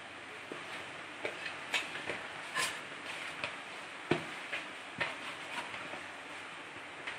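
Hand kneading soft semolina dough in a metal pot: irregular soft knocks and taps of hand and dough against the pot, the sharpest about four seconds in, over a steady background hiss.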